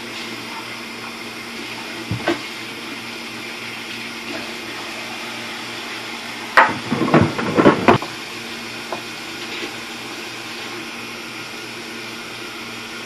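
Kitchen faucet running steadily into a stainless steel sink while a freshly scaled carp is rinsed under it. A sharp knock comes about two seconds in, and a short burst of knocks and clatter in the sink a little past halfway.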